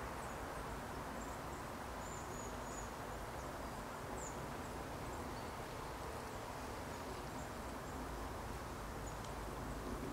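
Quiet outdoor background: a steady faint hiss and low rumble, with a few faint, short high bird chirps.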